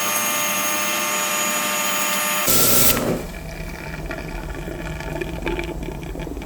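A small electric motor runs steadily, then cuts off about two and a half seconds in after a short loud rush of noise. Quieter handling noises and scattered clicks follow.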